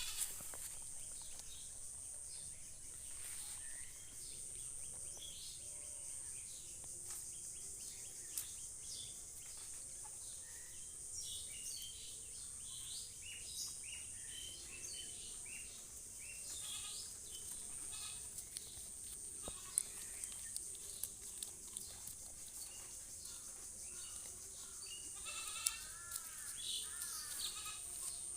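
A goat bleating, with a run of bleats near the end, over a steady high-pitched drone.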